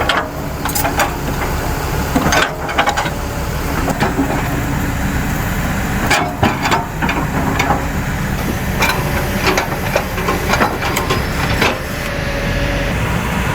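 Irregular hammer blows and metal clanks on steel excavator track parts as a track is fitted, over a steady engine drone.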